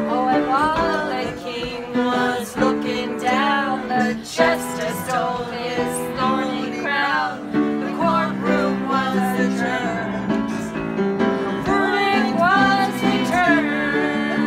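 Live informal music: voices singing a melody over held chords from accompanying instruments.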